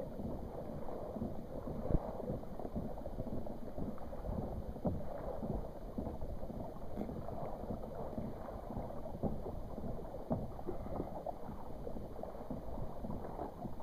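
Water lapping and splashing against the hull of a kayak: an uneven, churning wash of small slaps, with a sharper thump about two seconds in.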